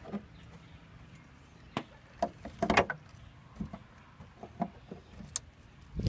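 A series of scattered knocks and clicks from handling, the loudest a short clatter about three seconds in.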